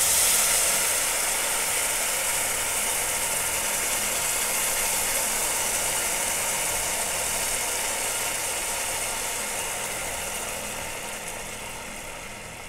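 Vegetable broth poured into a hot pan of orzo toasted in butter and olive oil, the pan hissing and sizzling as the liquid hits. The hiss starts suddenly and fades gradually toward the end.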